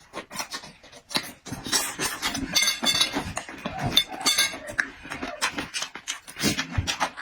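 Close-miked eating: wet chewing and smacking mouth sounds in quick clicks and crackles, with utensils clinking against dishes.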